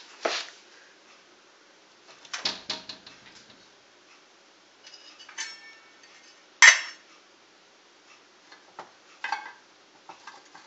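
Scattered clinks and clatters of kitchen dishes and utensils being handled, with quiet gaps between. One clink rings briefly, and the loudest is a sharp clank a little past the middle.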